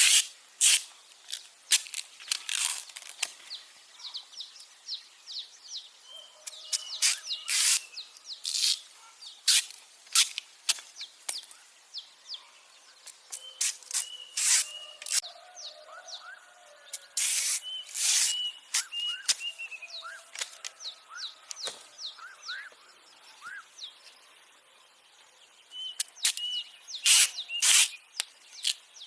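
Small birds chirping and calling in short whistled notes, with short, sharp rasping or rustling strokes of handwork coming irregularly about once a second and standing out louder than the birds.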